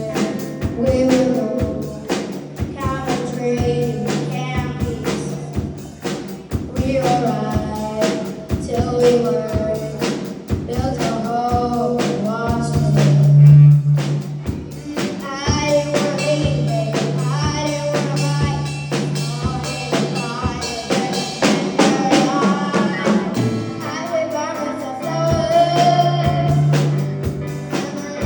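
A woman singing a pop song over musical accompaniment with drums and sustained bass notes.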